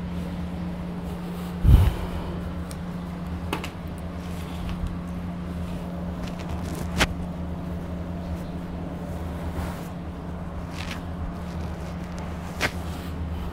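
Steady low background hum, with one dull thump about two seconds in and a few short sharp clicks.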